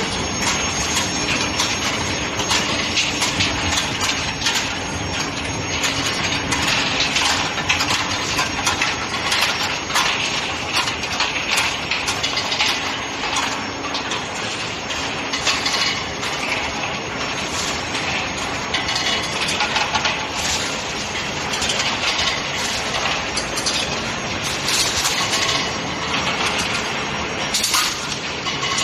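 Steel ball hot-rolling production line running: a continuous clatter of machinery with many sharp metallic clicks and knocks.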